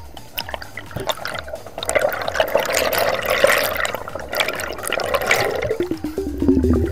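Underwater rushing and bubbling of churned water, picked up by the diver's camera as a speared brown meagre struggles on the spear line. A low, rapidly pulsing sound falling in pitch comes in near the end.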